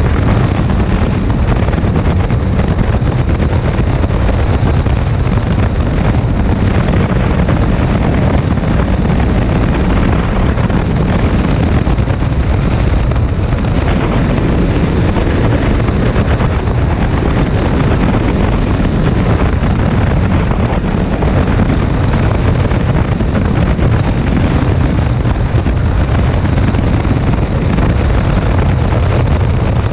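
ATV engine running steadily under way, mixed with heavy wind noise buffeting the microphone.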